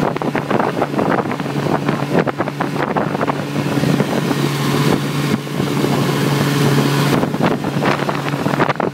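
1954 Evinrude Fleetwin 7.5 hp two-cylinder two-stroke outboard motor running steadily at cruising speed, pushing a small inflatable dinghy, with wind buffeting the microphone.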